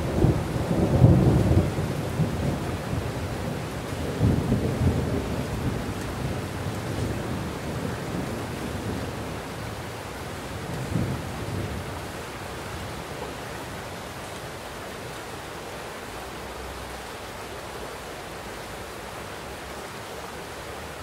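Heavy rain falling steadily with rolling thunder: low rumbles swell about a second in, again around four seconds and once more around eleven seconds, each weaker, then die away, leaving only the steady rain.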